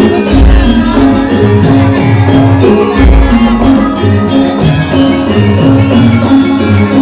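Loud music accompanying a Wonosobo lengger dance, with sustained pitched tones, quick percussion strokes and two deep booms, one near the start and one about three seconds in.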